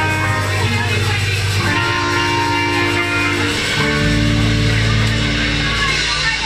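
Ska-punk band playing live and loud: amplified guitar over bass, with held notes and a change of bass note about four seconds in.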